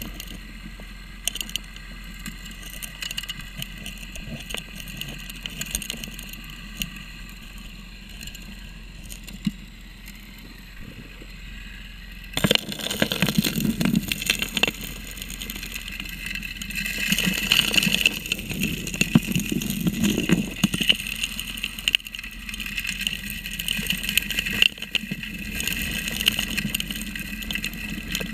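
Underwater sound of a 3-inch gold dredge working: the steady drone of its engine-driven pump heard through the water, with gravel and small rocks clicking and rattling as they are sucked into the suction nozzle. About twelve seconds in it turns louder and rougher as a hand pushes more gravel to the nozzle.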